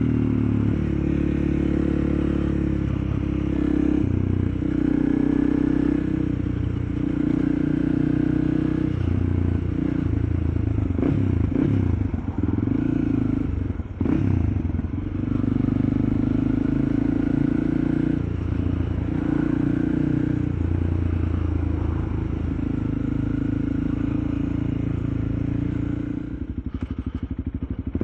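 Honda CRF300L's single-cylinder engine running on the move, its sound rising and falling with the throttle, with some rattling midway. Near the end it drops to a slower, quieter pulse as the bike slows.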